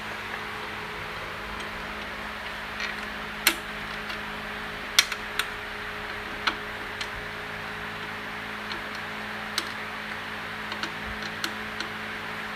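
Irregular light metallic clicks and taps of nuts, small parts and hand tools being handled while fitting hardware at a motorcycle's rear brake arm and axle. The sharpest clicks come a few seconds in, over a steady low hum.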